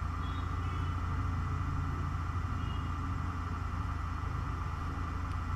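Steady low hum and rumble of background noise with a faint hiss, even throughout, with no distinct knocks or tool sounds.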